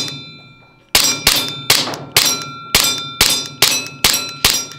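VFC SIG M18 gas blowback airsoft pistol firing a rapid string of about nine shots, roughly two a second, after a pause of about a second. Each shot is followed by a ringing metallic clang.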